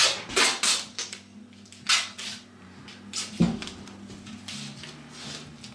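Rustling and scuffing from hands handling a puppy on a towel-covered grooming table: a cluster of quick scuffs in the first two and a half seconds, then a single knock about three and a half seconds in.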